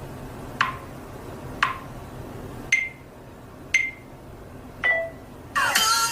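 Five short pinging pops, about one a second, each a quick falling sweep that settles on a brief tone, the later ones higher in pitch. Music with synthesized singing starts near the end.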